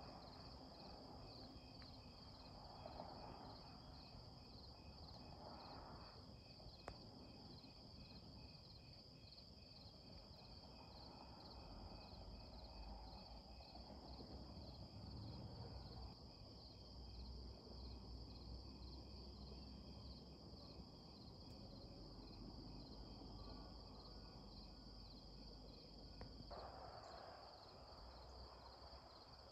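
Faint, steady chorus of insects chirping in a fast, even pulse, with a low rumble for a stretch in the middle.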